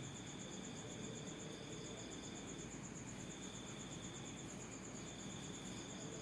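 Crickets trilling steadily in the background: a continuous high, finely pulsing chirr, with a second, lower trill that breaks off twice, over faint low background noise.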